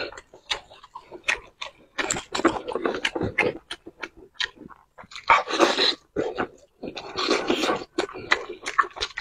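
A person eating pork in chili oil close to the microphone: wet chewing and many short lip smacks, with longer slurping, sucking stretches about two, five and seven seconds in.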